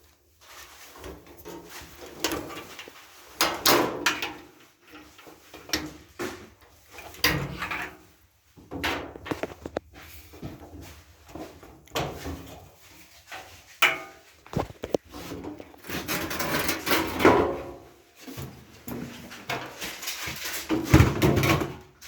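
Irregular clanks, scrapes and knocks of sheet-metal panels being handled as a dryer's front panel is pulled off during disassembly.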